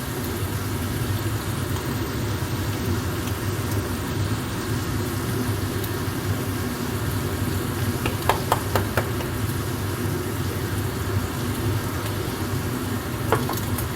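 Mince and sauce sizzling in a frying pan over a steady low rumble, with a few light clicks about eight seconds in and one more near the end.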